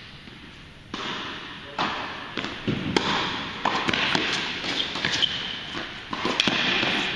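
Tennis balls being struck by rackets and bouncing on an indoor hard court during a doubles rally: a quick series of sharp pops, one after another, echoing in a large hall.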